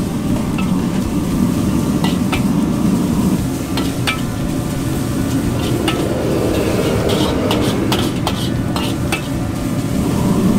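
Egg noodles being stir-fried in a wok, sizzling, while a metal wok ladle scrapes and pushes them against the pan in scattered strokes. Under it runs the steady rush of the gas wok burner.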